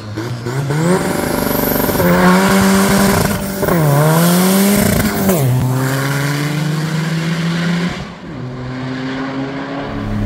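Turbocharged Volkswagen engine pulling hard under full acceleration, revs climbing, dipping about three and a half seconds in and climbing again, then falling to a steadier, lower drone as the driver eases off, and easing again near the end.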